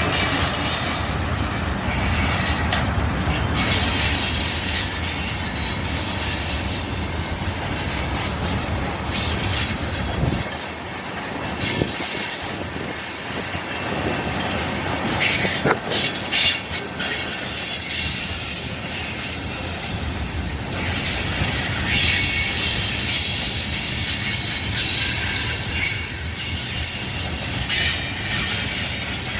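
Freight cars of a mixed freight train rolling past with a steady rumble. High wheel squeal comes and goes over it, and a quick run of sharp clacks sounds about halfway through.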